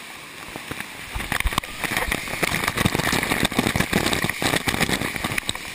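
Water park waterfall pouring down and splashing, a dense spattering rush of water hitting the camera up close, which gets much louder about a second in.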